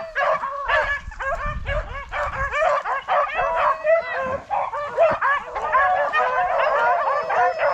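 A pack of rabbit hounds giving tongue together on a rabbit's trail: many overlapping yelping and baying cries without a break.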